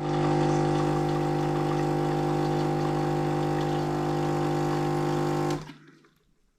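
Electric coffee-making appliance running with a steady, even motor hum, switched off abruptly near the end.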